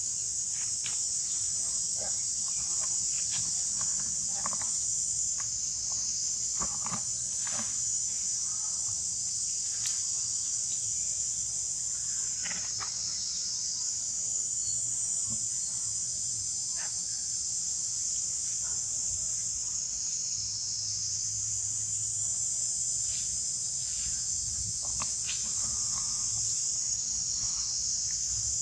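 A steady chorus of insects, a high continuous buzz that swells and eases slightly, with scattered short clicks and rustles underneath.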